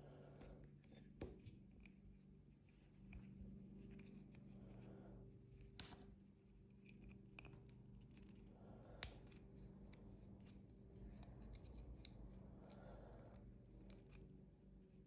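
Faint clicks, taps and light scrapes of a small metal leather edge beveler and its blade being handled and fitted, over a steady low hum. The two sharpest clicks come about a second in and about nine seconds in.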